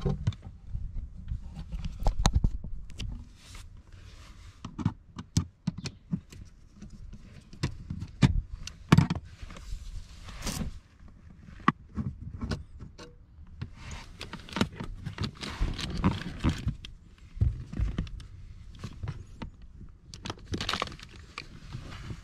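Irregular clinks, clicks and knocks of metal hand tools and parts being handled during work on a car.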